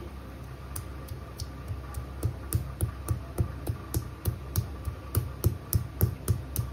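Pestle pounding ginger, green chillies and black pepper in a mortar to a coarse crush: a few light taps, then from about two seconds in a steady run of sharp knocks, about three a second.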